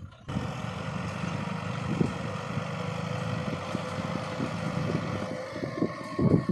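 Kubota tractor's diesel engine running steadily under load while its rear rotary tiller churns dry soil. The sound grows louder and rougher near the end as the tractor passes close by.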